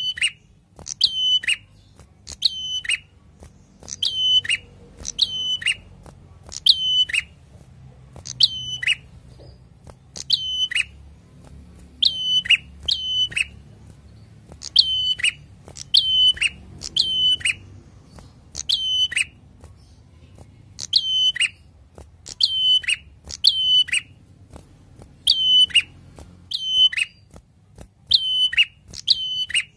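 Caged prenjak, a tailorbird, giving a loud, sharp call over and over, about once a second and often in quick pairs. Each call is a high note that drops steeply at its end.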